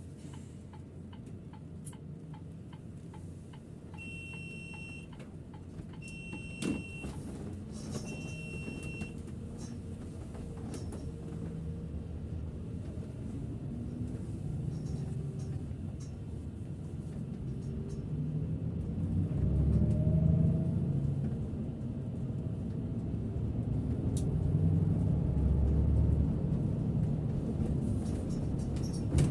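Setra S 531 DT double-decker bus from the driver's seat: three short electronic beeps about two seconds apart early on. Then the engine and road rumble build as the bus gets under way, loudest about two-thirds of the way through.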